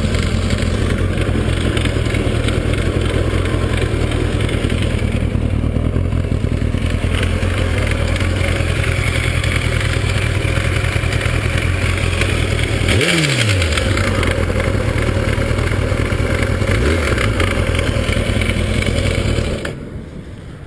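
Kawasaki ZX-12R inline-four engine running with a clattering knock, the sign of an internal engine fault. About two-thirds of the way through its pitch drops sharply, then recovers, and near the end it cuts off.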